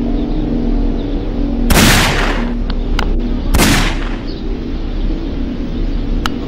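Two handgun shots about two seconds apart, each dying away over about half a second.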